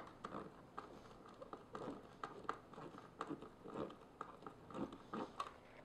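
Phillips screwdriver turned by hand, driving a small screw into a plastic cord cover: faint, irregular creaks, clicks and scrapes.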